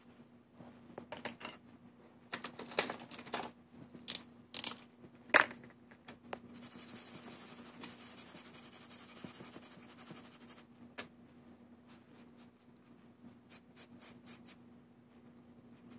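Hand coloring on paper with markers and pencils: scattered sharp clicks and taps in the first six seconds, then about four seconds of steady scratchy stroking on the paper, then a few lighter taps.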